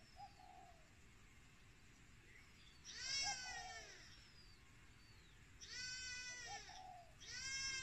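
Kittens mewing: three drawn-out, high-pitched cries, about three seconds in, about six seconds in and near the end, with fainter short mews between.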